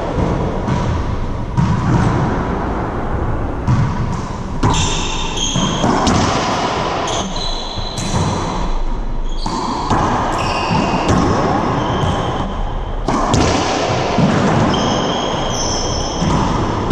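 Racquetball rally in an enclosed court: the hollow rubber ball cracks off racquets and the walls again and again, each hit ringing in the hard-walled room, with short high squeaks of sneakers on the hardwood floor between hits.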